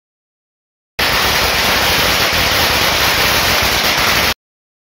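A string of firecrackers going off so fast that the cracks run together into one steady, loud crackling hiss. It starts suddenly about a second in and cuts off abruptly near the end.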